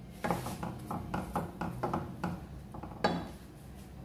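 Spoon stirring thick tomato chutney in a stainless steel kadhai: quick clinks and scrapes against the pot, about four a second for two seconds, then one more near the end.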